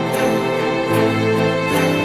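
Background music: a soft instrumental tune with sustained pitched notes that change every second or so and a light beat.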